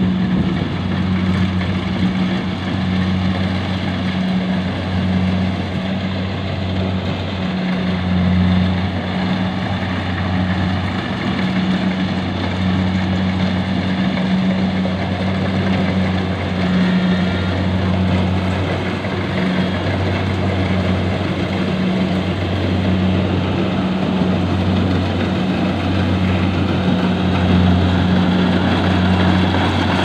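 Rice combine harvester's engine running steadily as the machine moves through the paddy cutting and threshing rice. A low hum swells and dips every second or two over the machine's constant clatter. It grows a little louder near the end as the harvester comes closer.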